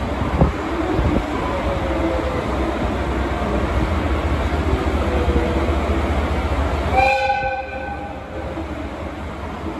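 DE10 diesel-hydraulic locomotive idling with a steady low engine rumble, then a single short horn blast of about a second, about seven seconds in.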